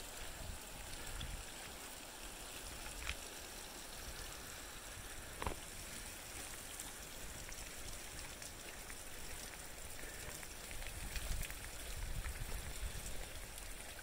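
Shallow canyon creek trickling over gravel and rocks, a steady hiss, with a low rumble underneath that grows a little louder near the end. A couple of sharp clicks stand out, one about three seconds in and a louder one about halfway through the first six seconds.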